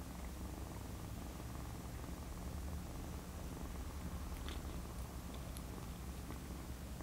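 Kitten purring steadily, a low continuous rumble, with a couple of faint clicks about four and a half to five and a half seconds in.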